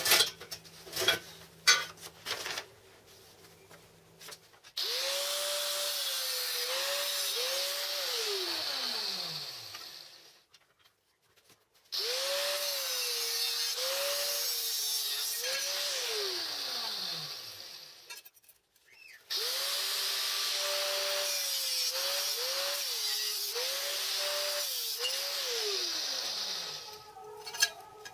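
Electric angle grinder switched on and run three times, about five seconds each, its whine dipping in pitch several times during each run, then winding down after each switch-off. A few clunks of metal being handled come before the first run.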